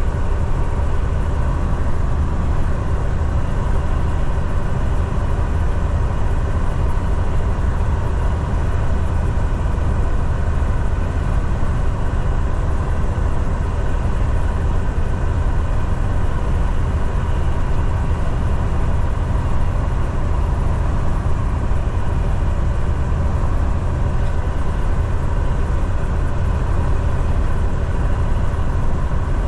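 Semi truck driving on the highway, heard from inside the cab: a steady low engine drone with road and tyre noise, unchanging throughout.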